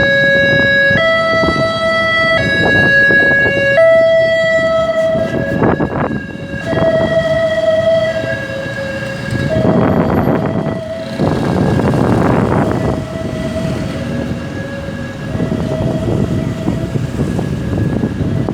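Emergency vehicle's electronic siren sounding a two-tone hi-lo pattern, switching between a higher and a lower pitch about every one and a half seconds. It grows fainter in the second half while traffic noise rises and falls beneath it.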